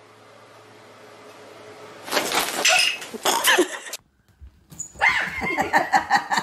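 Pet animal calls in two bursts: a run of pitched calls about two seconds in, then, after a brief silent break, quick repeated yips near the end.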